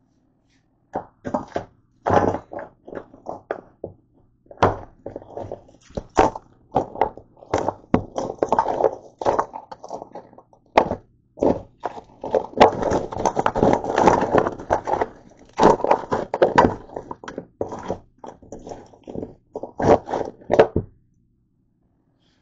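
Close handling noise: a quick, irregular string of knocks, thunks and rubbing, thickest about twelve to seventeen seconds in, stopping a second before the end.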